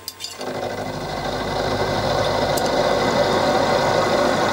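Small milling machine's spindle motor switched on after a couple of clicks, spinning up over about two seconds and then running steadily with the 10 mm end mill in the chuck.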